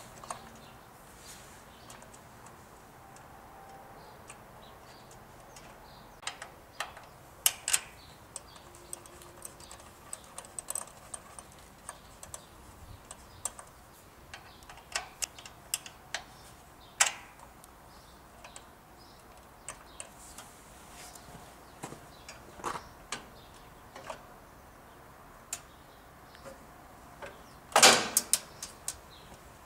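Scattered small metallic clicks and clinks of hand work on a ride-on mower's drive cable and spring linkage, with a louder burst of rattling clicks near the end.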